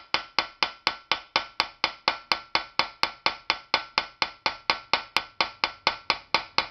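Light, steady metal-on-metal tapping, about four strikes a second, each with a short ring. A flat piece of metal is striking the end of a screwdriver set on a rusted, seized screw in a pressure cooker handle, to jar it loose.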